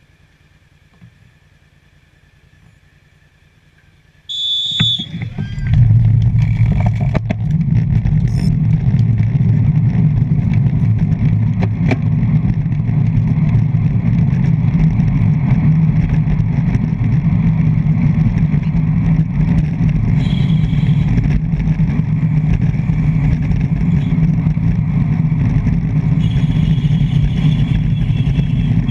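Wind rushing over a handlebar-mounted GoPro as a road-bike race pack gets under way. It is quiet for about four seconds, then comes a brief high-pitched tone and a few clicks, after which a loud, steady low wind rumble takes over.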